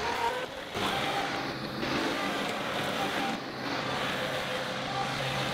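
John Deere 2038R compact tractor's three-cylinder diesel engine running steadily while the front loader works the bucket in the dirt.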